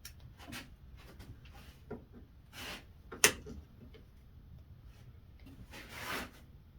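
Kickback pawls being tried against the riving knife and blade guard of a Skil 10-inch table saw: a few scraping rubs and light knocks, with one sharp click about three seconds in.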